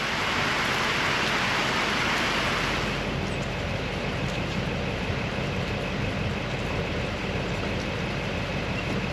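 A vehicle engine running with a steady low hum under the hiss of a light rain shower; the hiss is strongest in the first three seconds.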